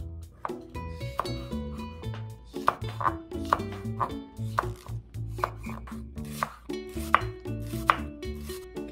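Kitchen knife slicing king oyster mushrooms, then a red chili, then onion on a wooden cutting board: a string of sharp knife strikes on the board. Light background music with steady notes runs underneath.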